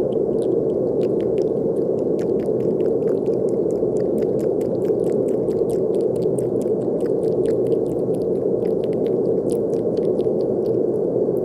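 Steady brown noise, a deep, even rushing hiss, with many light clicks and taps scattered over it.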